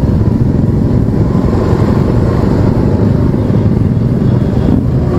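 Motorcycle riding at a steady cruise, a continuous low rumble of engine and wind buffeting the camera's microphone.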